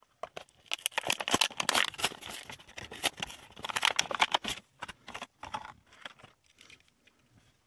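Cardboard backing card tearing and the plastic blister crinkling and crackling as a diecast toy car's blister pack is ripped open from the bottom: a dense run of sharp crackles that thins out to scattered clicks after about five seconds.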